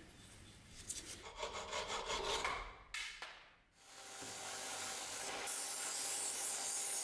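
Rough rasping strokes on wood, then from about four seconds a belt-and-disc sander running steadily as a wooden knife-handle blank is ground against its sanding disc.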